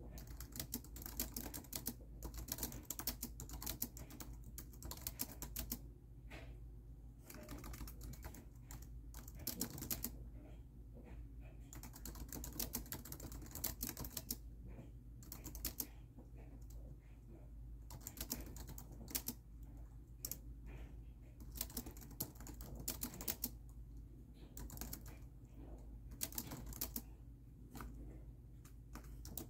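Typing on a laptop keyboard: bursts of rapid key clicks broken by short pauses, over a steady low hum.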